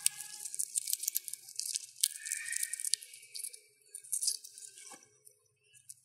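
Hamster cracking and nibbling sunflower seed shells: rapid crisp crackling and tearing clicks that thin out after about four and a half seconds.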